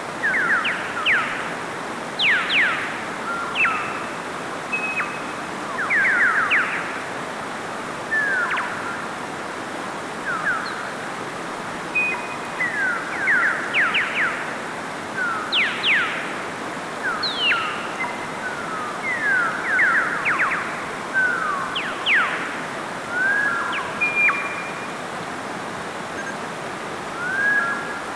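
Steady rush of a mountain stream spilling over rocks, with short high chirps, mostly quick downward swoops in pitch and a few brief flat whistles, coming every second or so on top of it, thinning out twice for a few seconds.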